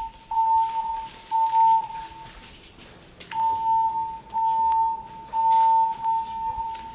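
Fire alarm evacuation speakers sounding their alarm tone between spoken messages: a single steady tone pulsing on and off, under a second per pulse, with a longer pause about two seconds in.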